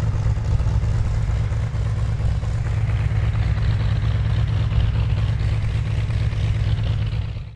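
Simulated radial-engine sound from an RC Pitts 12S model's onboard sound-effects system, running steadily with a heavy low rumble, then cutting off abruptly at the end.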